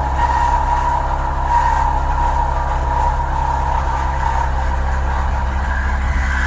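Bridgeport VMC 1000/20 CNC machining centre milling a hole in a metal plate: the spindle and cutter run steadily through the cut with a high whine over the machine's low hum.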